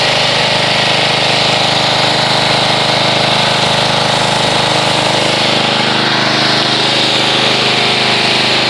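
Pressure washer running steadily, its spray hissing as it rinses detergent foam off a car.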